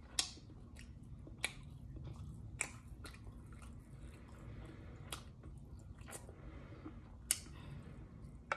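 A person chewing chicken wing meat with open-mouthed smacking. About seven sharp wet smacks come roughly one a second over faint chewing.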